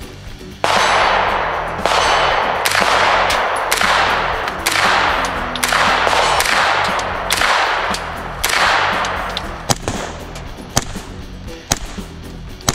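Colt 9mm AR-15 carbine fired semi-automatically, about nine shots roughly a second apart, each shot ringing out and fading before the next. Near the end only short sharp cracks are heard.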